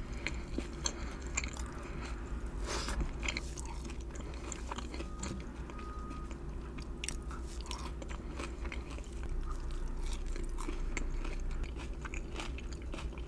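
Close-miked biting and chewing of salmon sliders: many irregular crunchy clicks and mouth sounds over a steady low hum.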